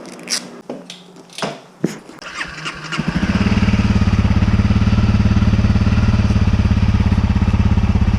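A few sharp clicks and knocks, then about three seconds in a 2017 Honda CRF250L's single-cylinder four-stroke engine starts and settles into a steady, evenly pulsing idle.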